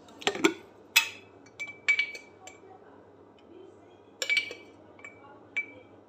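Coffee cups and other kitchenware handled and set down on a stone countertop: a series of sharp clinks and knocks, about eight in all, several with a brief ringing tone.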